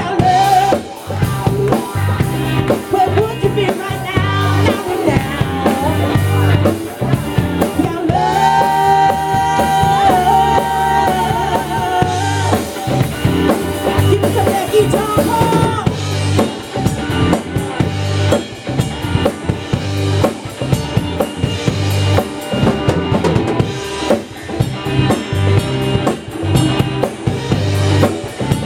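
Live rock band playing: drum kit with bass drum, snare and rimshots keeping a steady beat, under electric bass and electric guitar, with a woman singing into a microphone, including a long wavering held note about a third of the way in.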